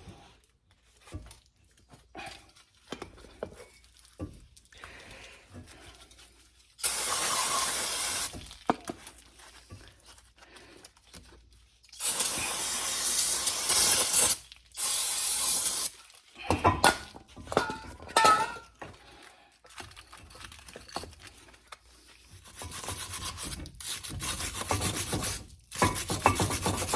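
Brake parts being cleaned: three steady hisses of aerosol brake cleaner, each about two seconds long, then a hard brush scrubbing the metal in quick repeated strokes near the end. Light scrapes and taps of metal come in between.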